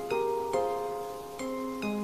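Background music: gentle plucked notes, harp-like, about two a second, each ringing on.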